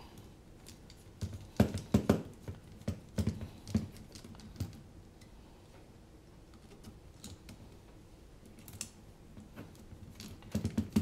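Irregular clicks and taps of a hex screwdriver and small screws against a quadcopter frame as the arm screws are tightened. Most of the louder clicks come in the first five seconds, with a few more near the end.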